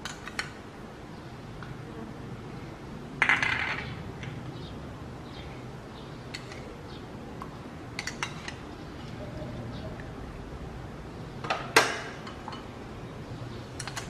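Metal spoon knocking and scraping against small plastic bowls and the rim of a steel stockpot as seasoning is scooped into the soup, over a steady low background from the boiling pot. A handful of sharp clinks, the loudest about three seconds in and again near twelve seconds.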